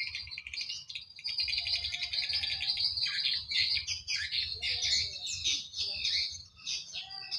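Many swiftlets twittering together, a dense, continuous chatter of rapid high chirps and trills.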